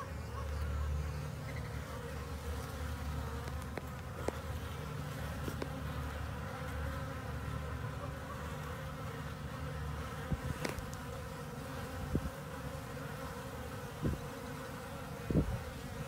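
Honeybees buzzing steadily as they fly and crawl in and out of an observation hive's clear plastic entrance tube, with a few faint short ticks scattered through.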